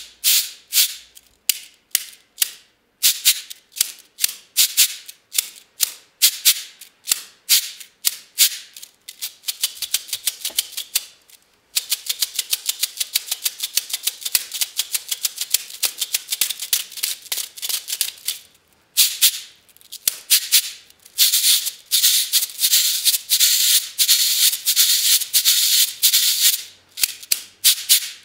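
Cabasa played by hand, its chain of steel beads scraped around the wooden-handled cylinder with a dry, high rattling. It starts as separate rhythmic strokes a few a second, turns to long runs of rapid, near-continuous scraping in the middle and later part, and goes back to single strokes near the end.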